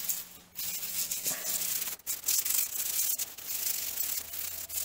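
Nylon brush scrubbing the grimy cast-iron column of a Kearney & Trecker milling machine: a steady, hissy scrubbing that starts about half a second in and carries on with only brief breaks between strokes.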